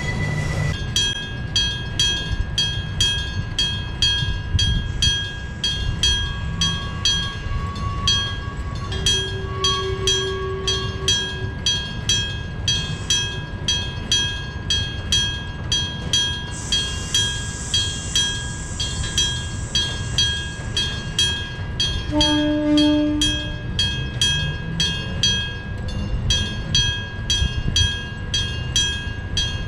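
Electric-bell (hammer-struck gong) railway level crossing ringing steadily, about two strikes a second, over the low rumble of a passing train with nose-suspended traction motors. A short horn blast sounds about two-thirds of the way through.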